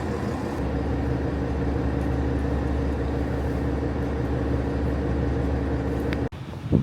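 Vehicle engine running with a steady low drone that cuts off suddenly near the end.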